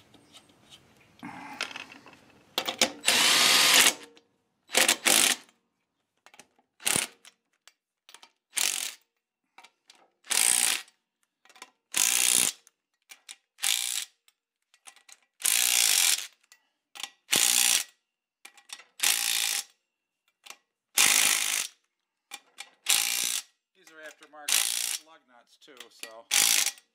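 Cordless DeWalt impact driver running lug nuts down on a wheel in short trigger bursts, over a dozen of them, each about half a second to a second long with a clean start and stop.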